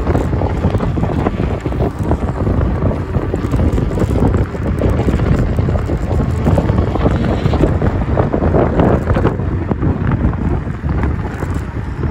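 Wind buffeting the microphone of a handlebar-mounted camera on a moving electric scooter: a loud, steady rumble that swells and dips with the gusts of airflow.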